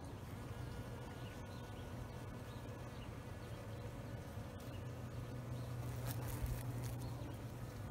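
Bees buzzing around flowers: a steady low hum that grows louder about five seconds in.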